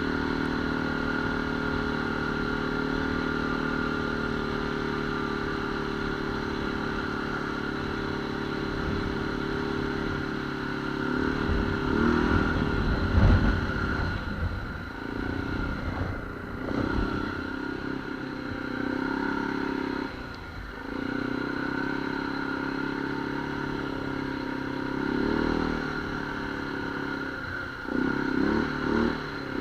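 ATV engine running while riding a trail, holding a steady pitch for long stretches, with the throttle let off and opened again several times. It gets louder and rougher about twelve to fourteen seconds in and again near the end.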